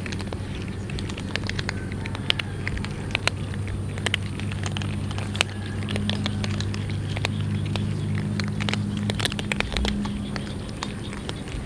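Several cats crunching dry kibble: a dense, irregular run of small crisp crunches and clicks. A low steady hum sits underneath and fades out near the end.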